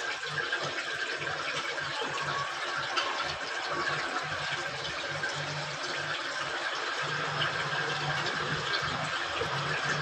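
Samsung inverter washing machine filling with water: a steady rush of running water into the drum.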